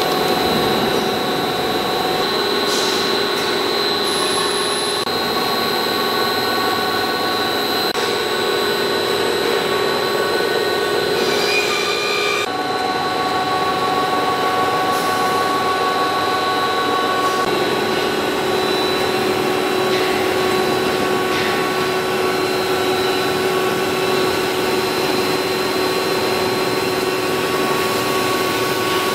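PVC pipe extrusion line running: a steady machine noise from motors and feeders, with several constant whining tones over it. The mix of tones changes a little under halfway through.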